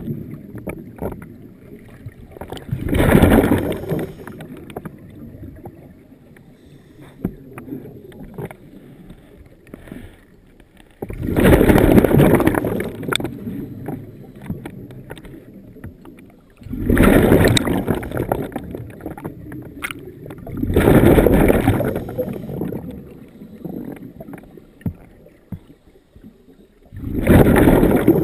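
Scuba diver's exhaled breath bubbling out of a regulator exhaust underwater, in five bursts of a second or two each, a few seconds apart, with quieter stretches between them for the inhalations.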